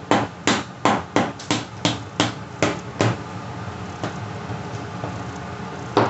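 Spoons knocking against a plastic container while stirring thick cloud dough: about ten quick knocks, roughly three a second, then a pause and one more loud knock near the end.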